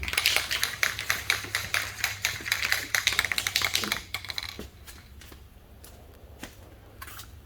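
Aerosol spray paint can being shaken, its mixing ball rattling in a fast run of clicks for about four seconds, then a few scattered clicks.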